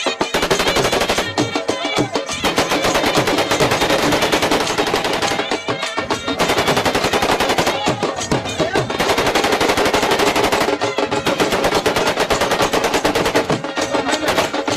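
Automatic gunfire: long rapid bursts of shots, with short breaks about five and a half and eleven seconds in, over music.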